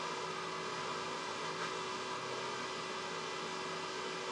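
Steady electrical hum with a faint hiss: the background room tone of the recording.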